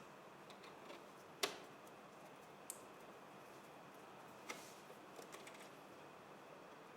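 A few scattered clicks and taps of tools and parts being handled as a ventilator's housing is opened, the loudest about one and a half seconds in, over faint room hiss.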